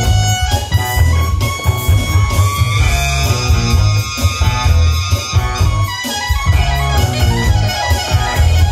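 A live band playing an instrumental passage, led by a loud, pulsing electric bass line with electric guitar on top.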